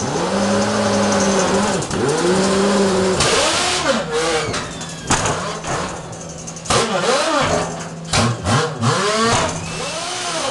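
Air motors of an LM57 rocker shovel (pneumatic rail-mounted mucking loader) running in repeated bursts, their whine rising and falling in pitch as the loader travels and swings its bucket. A burst of air hiss comes about three seconds in, and several metallic clanks follow in the second half.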